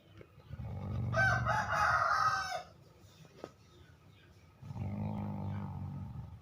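An animal snoring, two breaths a few seconds apart. The first is loud, a low rattle with a high squealing whistle over it. The second is a lower, plainer rattle.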